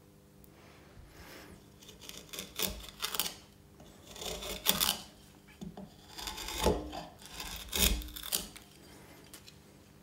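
A steel chisel rubbing and scraping in a series of short, irregular strokes, some with a dull knock, over a low steady hum.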